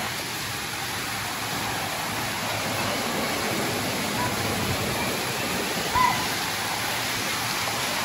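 Cold spring water rushing steadily over a spillway and churning into white water in a rocky channel below. A short high call stands out about six seconds in.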